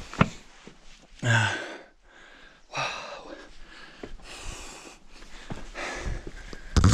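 A hiker breathing hard from the exertion of climbing a boulder field: heavy, noisy breaths about every second and a half, with small knocks of boots on the rocks between them and a louder burst near the end.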